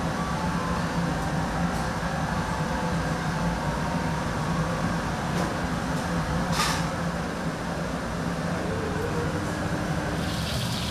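A steady low mechanical hum and rumble with a constant low tone, broken by a brief hiss about six and a half seconds in.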